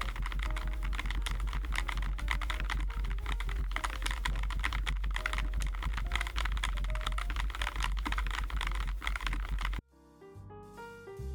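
Fast, continuous typing on a Keychron J9 low-profile mechanical keyboard with Milk POM switches: a dense run of key clicks over soft background music. Near the end the typing cuts off suddenly and piano jazz music takes over.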